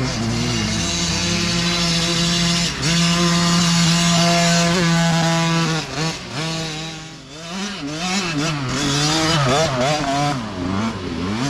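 Mini dirt bike engine running at high revs, held steady for a few seconds, then easing off about six seconds in and revving up and down repeatedly as the throttle is worked.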